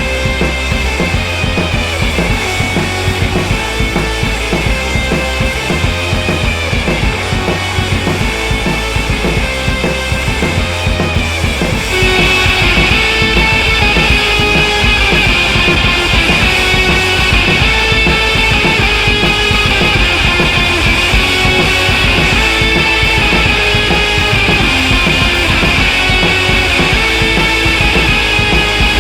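Background music with a steady drum beat, growing louder and fuller about twelve seconds in.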